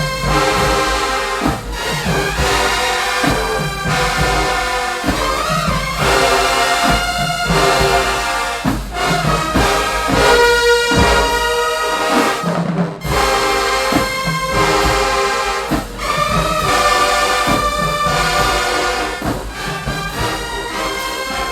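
Marching band playing loudly, its brass section of trumpets and trombones carrying sustained chords and melody over a steady drum beat.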